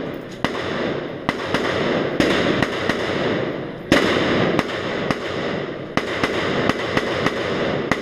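Gunshots echoing in an indoor shooting range: shots from several lanes come at an irregular pace, roughly one to three a second, each followed by a long echo off the walls. The loudest shot falls about four seconds in.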